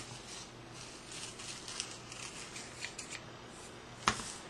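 Scissors snipping pattern tissue paper in a run of quick, light cuts. About four seconds in comes a single sharp knock, the loudest sound.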